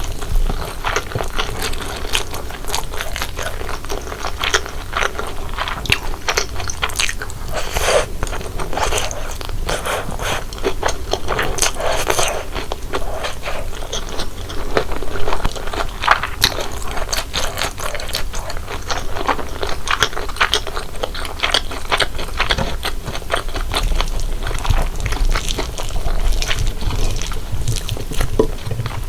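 Close-miked eating sounds of spicy fried instant noodles with corn and cheese: chewing with soft wet clicks and crackles, and occasional louder slurps or bites.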